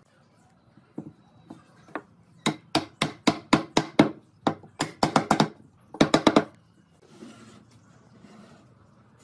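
Wooden mallet knocking pine frame pieces together into their joints: a few single taps, then quick clusters of sharp wooden knocks, about three to four a second, from about two and a half to six and a half seconds in.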